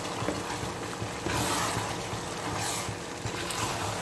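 A spoon stirring and scraping through a pan of moist spiced rice, turning it over from bottom to top. The scraping gets louder twice, about a second and a half in and again near three seconds.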